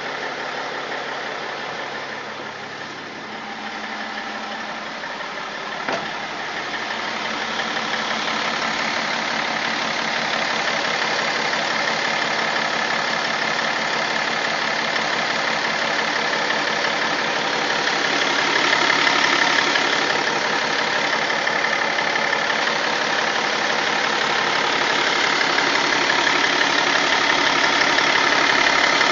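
BMW M57 straight-six turbodiesel running steadily, with a single sharp click about six seconds in. The engine carries an extraneous noise whose cause the owner cannot identify.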